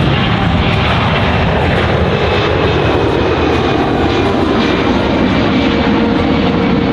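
Jet roar of a C-17 Globemaster III's four turbofan engines during a steep climb-out. It is loud and steady, with a tone that falls in pitch between about one and three seconds in.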